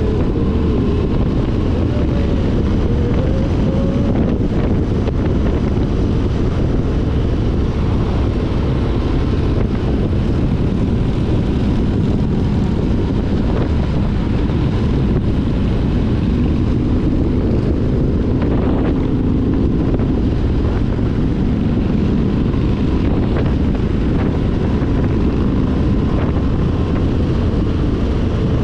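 Motorcycle riding at road speed: its engine running steadily under heavy wind rush on the microphone.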